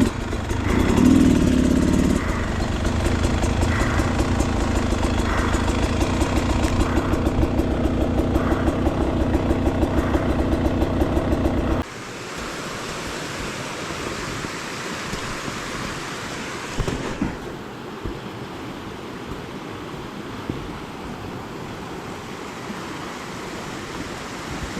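Motorcycle engine idling steadily with an even rapid pulse, stopping abruptly about twelve seconds in; after that, a creek's water rushing steadily.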